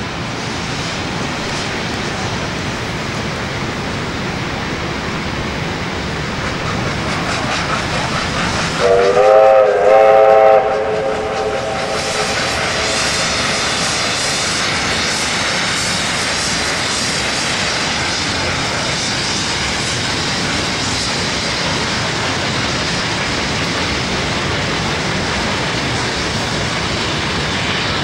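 Double-headed R class Hudson steam locomotives working a heavy train past, a steady noise of exhaust and rolling stock, with one steam whistle blast of about a second and a half about nine seconds in.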